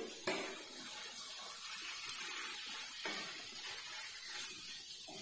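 Wooden spatula stirring saucy chilli paneer in a pan, a wet, faint stirring over a steady hiss, with a couple of soft knocks of the spatula.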